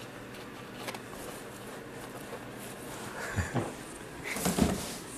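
A brush working oil paint onto a canvas over a steady low room hum, with a soft click about a second in and a few short rustles later on as the painter steps back from the easel.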